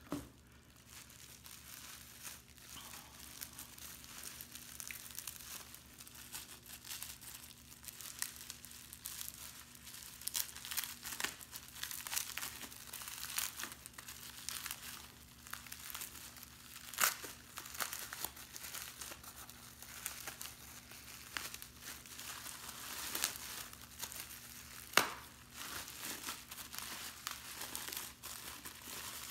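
Plastic bubble wrap being handled and unwrapped by gloved hands, crinkling and rustling continuously with many short sharp crackles, two of them louder than the rest.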